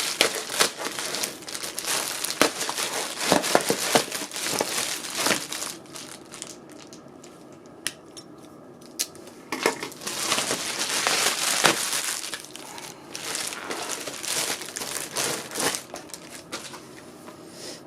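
Packaging being handled and opened: crinkling and crumpling in irregular bursts with small clicks, and a quieter stretch of a few seconds midway.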